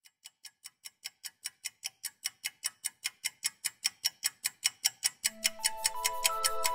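Clock ticking fast, about five ticks a second, fading up from faint to clear. About five seconds in, soft sustained music notes come in under the ticking.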